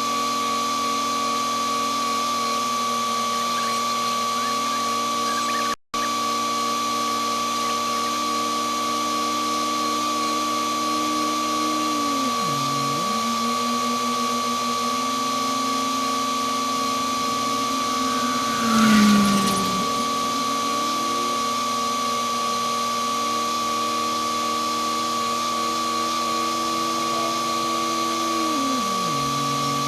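Asphalt-paving machinery running: an engine whose pitch dips and climbs back a couple of times, under a steady high whine, with a brief louder burst of noise about 19 seconds in.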